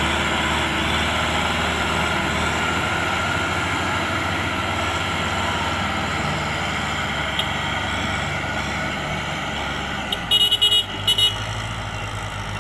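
Heavy farm machinery engines, a tractor and a rice combine harvester, running steadily. About ten seconds in, a rapid string of five or six short, high beeps sounds, like a horn being tooted.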